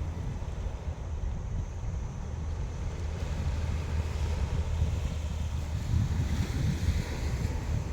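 Sea waves washing onto the shore in the wind, with wind buffeting the microphone as a deep, steady rumble under the hiss of the surf. The surf swells a little near the end.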